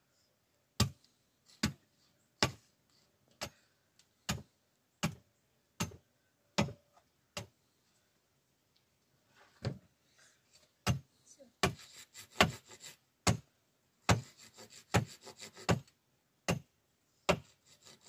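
A tool striking wood again and again, a little under once a second, about nine times. After a short pause come more strikes mixed with scraping and rasping on wood.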